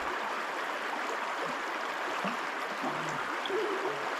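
Running water flowing steadily, an even rushing sound.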